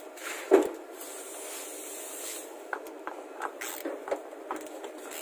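Hand tools handled at a plastic filter housing cap under a vehicle: a sharp knock about half a second in, then scattered light metallic clicks and taps as a socket on a long extension is fitted to the cap and turned to snug it.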